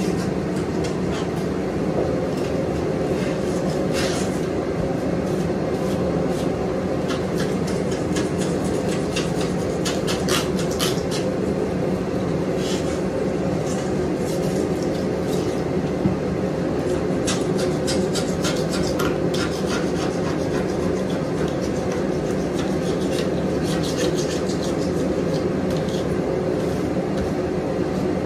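Hand scraper scraping old coating off a bathtub rim in short, irregular strokes, during stripping before reglazing. A steady machine hum runs underneath.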